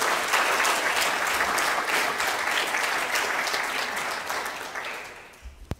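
Audience applauding, dying away near the end, followed by a single sharp knock.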